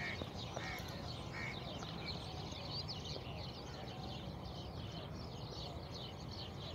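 Many small birds chirping and twittering in a dense chorus, with a few louder calls in the first second and a half, over a steady low rumble.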